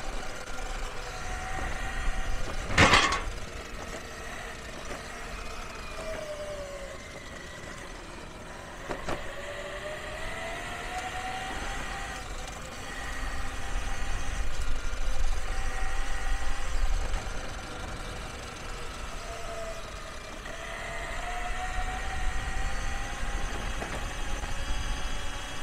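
Electric mountainboard's steel helical gear drive (7:1 reduction) whining, its pitch rising and falling as the board speeds up and slows, over the low rumble of the wheels rolling on pavement. A sharp knock about three seconds in is the loudest moment, with a smaller one near nine seconds.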